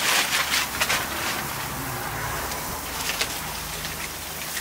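Burger patties and a pork porterhouse sizzling and crackling over hot charcoal, with aluminum foil crinkling as it is handled.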